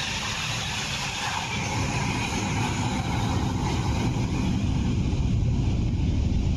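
Boeing 757 freighter's jet engines rumbling as it rolls down the runway after touchdown on an emergency landing, growing slightly louder toward the end.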